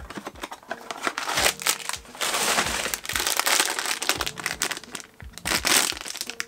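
Silver foil blind-bag wrapper crinkling in the hands as it is worked open, in several bursts with short pauses between.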